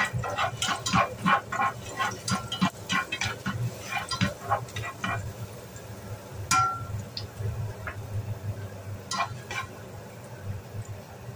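A spatula stirring minced garlic in oil in a stainless steel frying pan. Quick scraping strokes come about three or four a second for the first five seconds, then a few sparser scrapes and taps, including one short ringing clink about six and a half seconds in. A low steady hum runs underneath.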